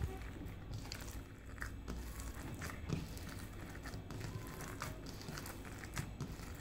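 Bare hands squeezing and kneading a mixture of mashed potato and egg in a ceramic bowl: soft, faint wet squishing with scattered small clicks.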